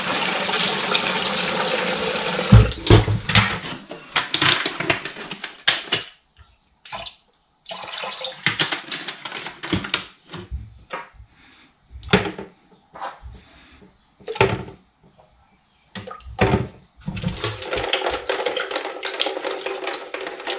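Kitchen tap running into a plastic bowl in a stainless steel sink, cut off after about two and a half seconds. A long stretch of scattered knocks, clatter and short splashes follows, and the tap runs again near the end.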